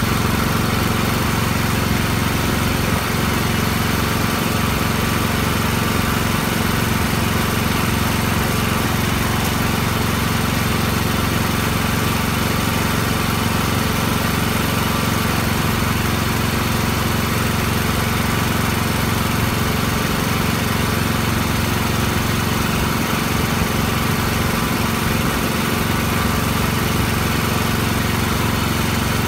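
A small engine running steadily at a constant speed, with no change in pitch or level.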